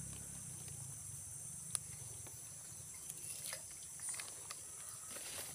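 Steady high-pitched chorus of insects such as crickets, with one sharp click a little under two seconds in.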